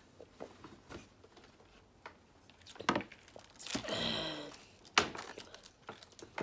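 Quiet sips and swallows of soda from a plastic cup, with faint ticks, then a short voiced exhale after drinking about four seconds in, falling in pitch, and a single sharp click a second later.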